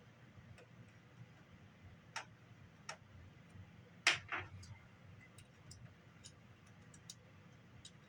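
Scattered small clicks and taps from handling the plastic casing and parts of a cassette Walkman being put back together, with the loudest pair of clicks about four seconds in.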